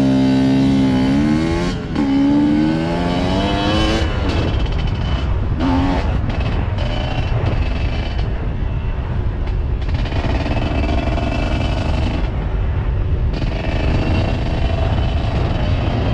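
On-board sound of a dirt bike engine being ridden. Its pitch climbs twice in the first four seconds as it shifts up, then it runs steadily at part throttle along the trail under a constant rush of noise.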